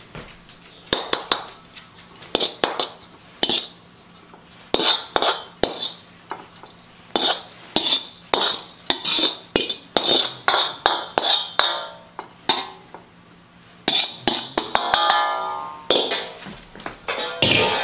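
A spatula scraping and knocking against a metal wok as fried rice is pushed out onto a plate: a quick, irregular run of scrapes and clacks, with the wok ringing briefly twice near the end.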